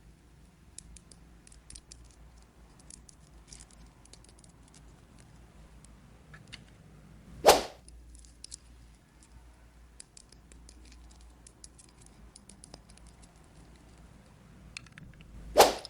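Small plastic toy pieces clicking and tapping as they are handled, light and irregular. Twice, about halfway through and at the very end, a short loud swish cuts in.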